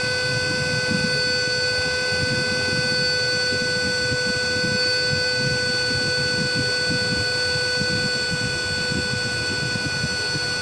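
Cordless vacuum cleaner motor running free with no load, a steady whine over airflow rumble. Its battery is near the end of a full charge after about ten minutes of running, and its power is starting to drop.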